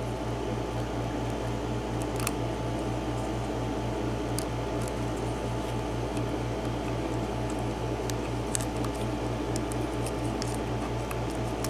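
Faint, scattered small clicks of a lock pick working the pins of a 7-pin LSDA mortise lock cylinder, over a steady low hum that pulses regularly.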